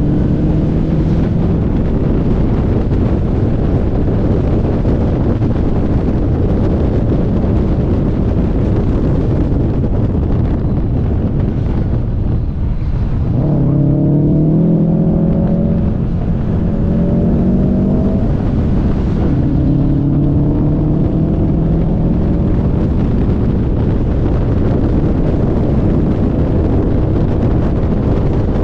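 Car engine running hard under load with steady wind and road roar; its pitch climbs several times in the second half as it accelerates, after a brief drop about twelve seconds in.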